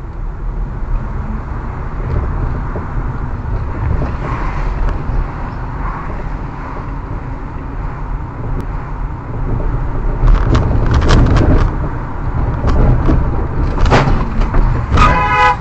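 Car-interior road and engine rumble from a dashcam as the car drives slowly in traffic. From about ten seconds in come a run of sharp clicks and knocks, and a brief pitched sound just before the end.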